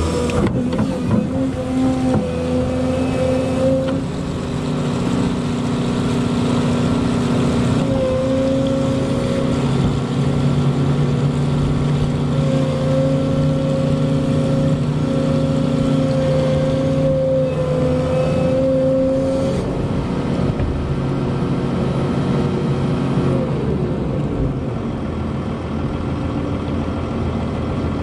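Volvo EC220E excavator's diesel engine running under working load, with a steady hydraulic whine whose pitch steps up and down as the machine works.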